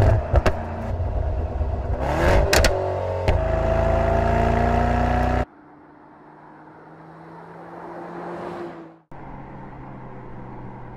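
Mercedes-AMG GT 4-door coupé exhaust. Over a loud engine note come sharp cracks and pops near the start and again a little after two seconds, then the revs climb under acceleration. After a sudden cut, a quieter car approaches with its engine sound swelling, and after another cut a softer engine note runs steadily.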